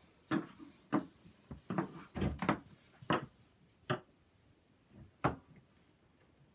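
Irregular knocks and thumps, about ten of them over the first five and a half seconds, the sharpest about five seconds in.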